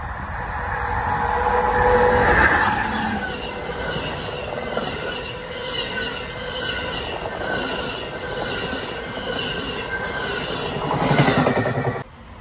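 Amtrak Northeast Regional passenger cars passing close by at speed: a steady rush of steel wheels on rail, with high wheel-squeal tones coming and going in a regular rhythm, just under two a second. The sound surges near the end, then cuts off suddenly.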